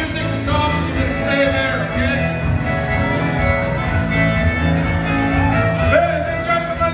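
A fiddle leading a live band in an old-time dance tune, with a steady bass underneath.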